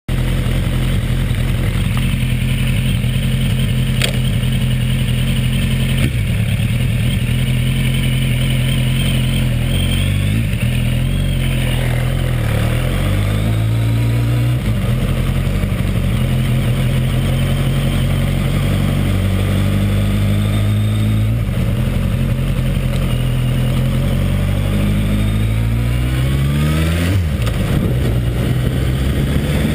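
Suzuki Bandit 1200's air/oil-cooled inline-four running just after starting, its pitch creeping up in steps through the second half and dropping sharply near the end. Somewhere in the running, from about two-thirds of the way in, is a slight engine noise that the owner has noticed at start-up and wants identified.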